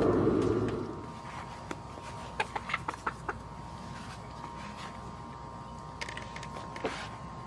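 Backyard hens clucking softly in short calls, a quick run of them about two and a half seconds in and a few more near the end. Before that, a loud low steady noise stops about a second in.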